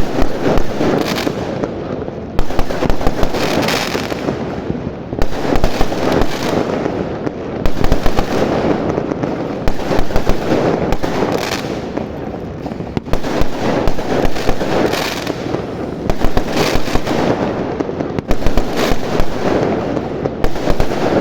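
Fireworks going off in a dense, continuous crackle, with loud bangs every second or two.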